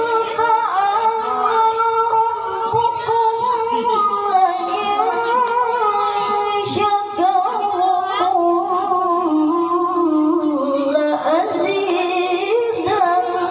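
A boy's voice in melodic Quran recitation (tilawah) through a microphone and PA, sung in long held notes with wavering, ornamented turns.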